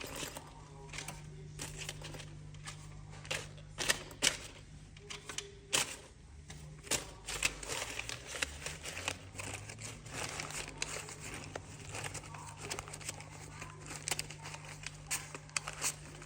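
Paper banknotes rustling and crinkling as they are handled and counted, with irregular sharp snaps of paper, over a steady low hum.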